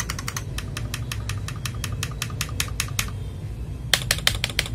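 Mechanical keyboard keys being pressed in quick succession, a rapid clicking at about eight clicks a second, with a short pause near the end and then louder clicks. A steady low hum runs underneath.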